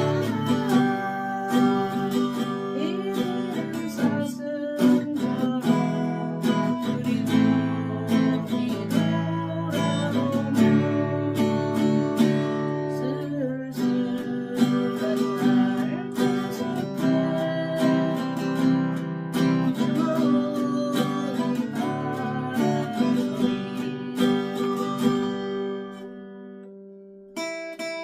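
Acoustic guitar played with strummed chords and picked notes; the playing dies away about 26 seconds in and starts again just before the end.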